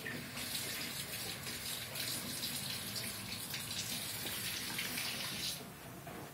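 Steady hiss of running water, as from a tap, cut off suddenly about five and a half seconds in.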